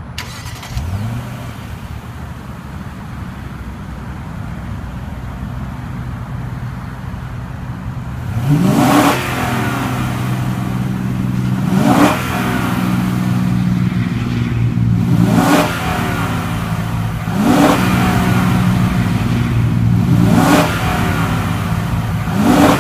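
2014 Lexus LS 460 F Sport's 4.6-litre V8 starting up and settling into a steady idle, heard from outside the car. From about eight seconds in it is revved about six times, each rev rising quickly, held briefly and dropping back.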